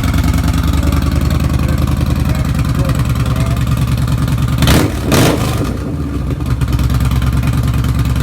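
Yamaha Bolt's air-cooled V-twin running through a short GP Shorty exhaust, loud, with a steady, even idle pulse. About five seconds in come two short, loud bursts, then it settles back to idle.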